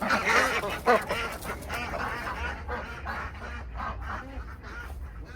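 Ducks quacking in a rapid run of short calls, loudest in the first second and then fading off.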